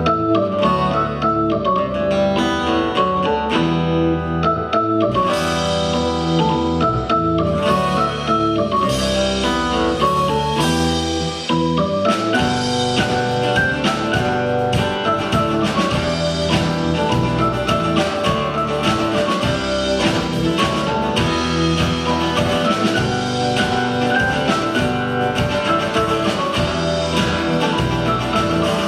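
Instrumental band music playing a Breton tune: a pitched melody over a steady bass line. After a brief dip about twelve seconds in, the texture grows fuller, with a steady drum beat.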